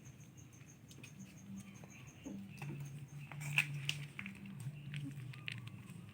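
Dogs' paws and claws pattering and scrabbling on a hard floor in play, in quick irregular clicks and scuffs. A sharper knock comes about halfway through, over a low drone that comes and goes.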